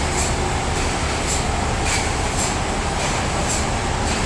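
Sawmill saw running through a large log: a loud, steady mechanical noise with a light, regular tick about twice a second.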